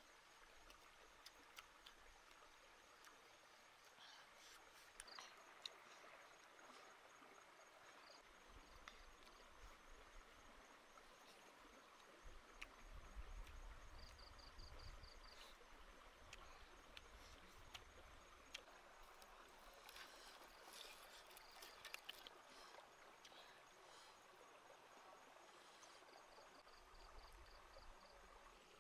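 Near silence: faint ambience of a shallow stream running as a low hiss, with a few soft clicks and, twice, a brief rapid series of high chirps.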